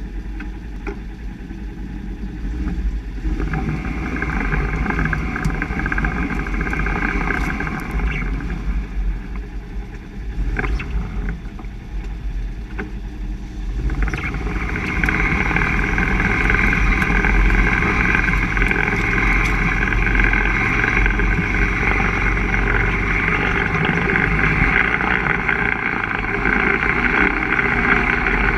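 Driveline of a 2016 Polaris RZR 1000 heard from underneath while driving. Under the low running of the engine there is a high, many-toned whine, the front differential noise the owner is documenting on an almost new machine. The whine comes in a few seconds in, eases off around ten seconds, and returns louder about fourteen seconds in.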